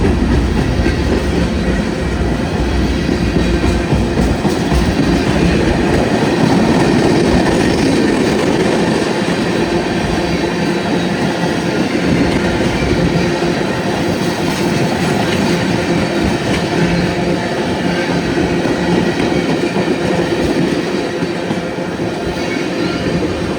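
Union Pacific freight train cars rolling steadily past, with a continuous rumble and clatter of wheels on the rails.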